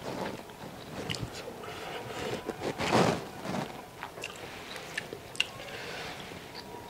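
A person eating rice and rohu fish curry by hand: quiet chewing with small clicks and squishes of fingers working food on the plate, and one louder sound about three seconds in.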